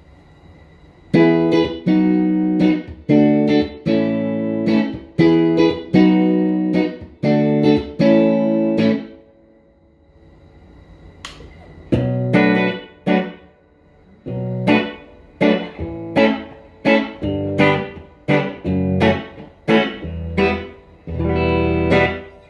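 Clean electric guitar, a Fender Player Plus Telecaster through a Fender Tone Master Super Reverb amp, playing rhythmic strummed chords. The chords pause for a couple of seconds partway through, start again, and end on a longer ringing chord.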